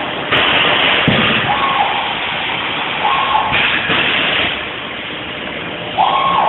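Milltronics RW15 CNC milling machine cutting: a dense, steady hiss with a high whining tone that shifts pitch in steps every second or two. It gets louder about a third of a second in and again near the end.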